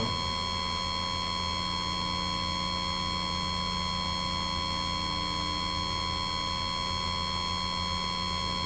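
Steady electrical hum from the sound system, with a higher whine over it, unchanging and with no other sound on top.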